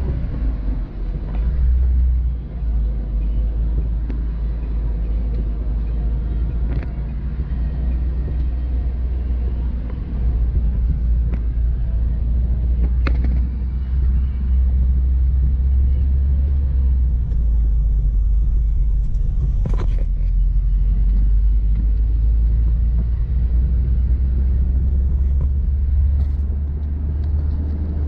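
Steady low road and engine rumble heard from inside a moving car's cabin, with a few faint clicks.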